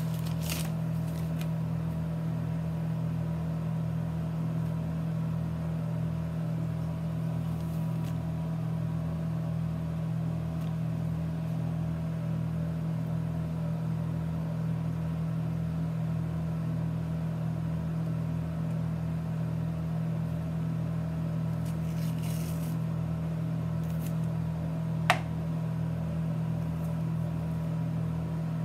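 Steady low machine hum with a faint regular pulse beneath it. It is broken by brief paper rustling of a dressing wrapper near the start, more rustling about 22 seconds in, and a single sharp click about 25 seconds in.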